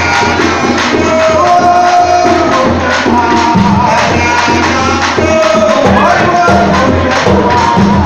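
Live danmyé music: a hand drum beating a quick, steady rhythm under a singing voice holding long, wavering notes.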